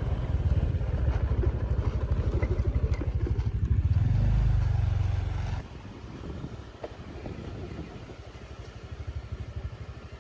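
Small motor scooter engine running under way, working harder around four seconds in, then dropping suddenly to a quieter low running about five and a half seconds in as the scooter slows.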